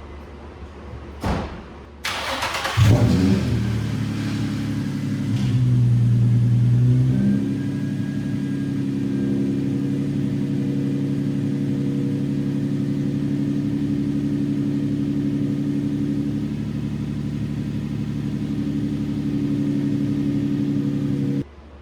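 A click, then the Nissan 350Z's VQ35DE 3.5-litre V6 cranks briefly and catches on its first start after a timing chain replacement. It runs at a raised idle for a few seconds, then settles into a steady idle, a sign that the new chains are timed right. The sound stops abruptly near the end.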